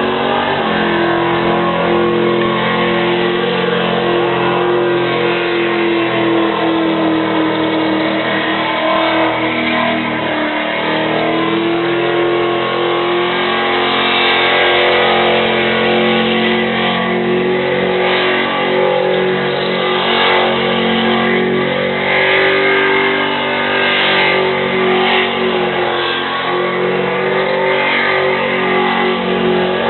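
1966 Ford Mustang's engine held at high revs through a burnout, the rear tyres spinning on the spot. The revs hover almost steady, sag slightly around ten seconds in and then pick back up.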